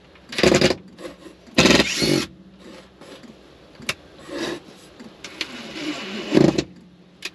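Cordless drill/driver driving a long screw through a 2x2 board into the floor, run in four short bursts.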